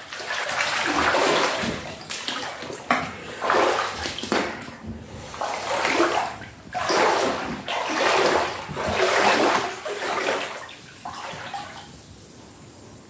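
Floodwater sloshing and splashing around a person's legs as he wades, one surge with each stride about once a second, dying down near the end.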